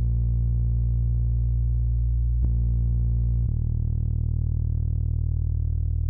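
Synthesizer music: sustained, bass-heavy chords, with a new chord struck about two and a half seconds in and another change about a second later.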